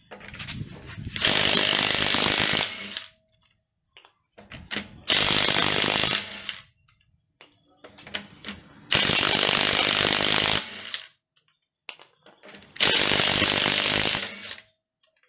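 DeWalt cordless impact wrench hammering wheel lug nuts loose, in four loud bursts of about a second and a half each, a few seconds apart: one burst per lug nut. Each burst starts with a short, quieter run.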